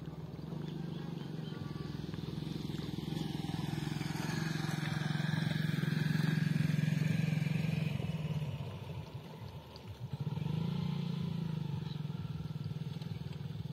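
A small engine running steadily with a low, even hum; it fades for a second or so about nine seconds in, then picks up again.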